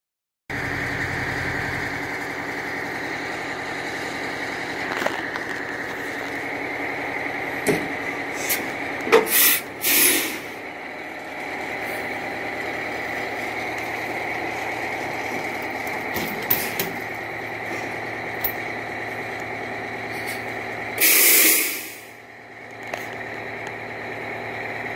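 Big diesel engine of a heavy military truck (HEMTT) running steadily as it takes up a tow chain, with two loud hisses of released air from its air brakes, about nine and about twenty-one seconds in.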